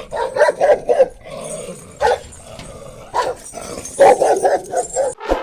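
A dog barking: a quick run of short barks, two single barks, then another quick run of barks.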